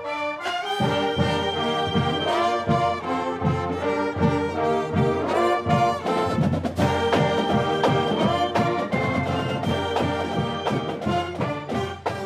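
Marching band playing: trumpets, trombones, sousaphones, saxophones and clarinets over a steady drum beat. The tune comes in loud about half a second in after a brief pause.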